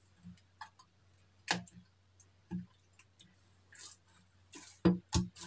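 Thick slime being kneaded and stretched by hand in a glass bowl, with scattered sticky clicks and pops. Two louder knocks come close together near the end.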